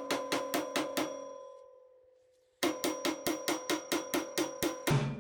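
Background music: a quick, evenly ticking percussion pattern with a ringing, cowbell-like tone, about five strikes a second. It fades away about a second and a half in, starts again after a short pause, and deeper drums join near the end.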